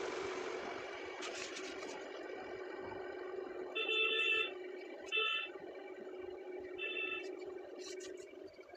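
A steady background engine hum, with a vehicle horn honking three times in the middle; the first honk is the longest. A brief rustle of paper near the end.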